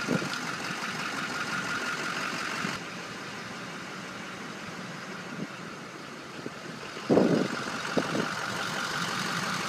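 Steady running of a four-wheel-drive vehicle's engine, heard from inside the cabin, with a short louder sound about seven seconds in.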